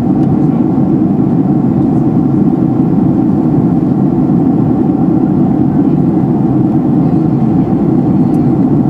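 Steady low drone inside an aircraft cabin in flight: engine and rushing-air noise, unchanging throughout.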